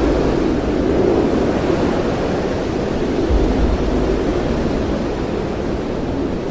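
Typhoon storm noise: a loud, steady rushing of wind and sea, with a low rumbling gust buffeting the microphone about halfway through.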